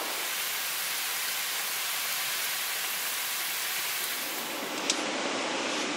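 Steady heavy rain falling, an even wash of noise, with a single short click about five seconds in.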